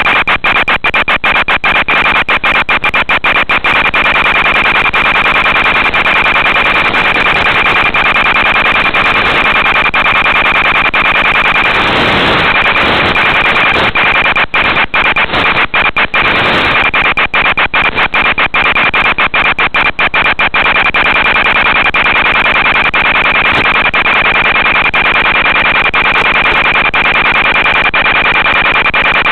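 Hiss and static from an analog FPV video link's audio channel, with a steady high whine and constant crackling dropouts as the signal breaks up. A couple of times around the middle a lower sound briefly dips and rises in pitch.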